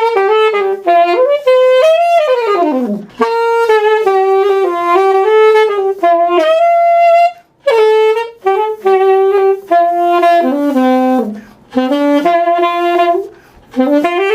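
Yamaha YAS-280 alto saxophone playing a solo melody of held notes. About two seconds in it falls away in a long downward slide, and near the end it slides up into a note.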